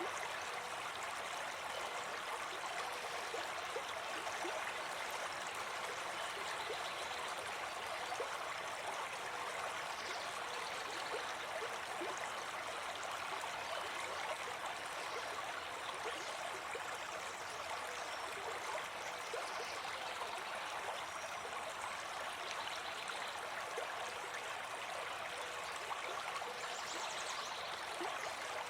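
Brook babbling steadily, an even rush of running water.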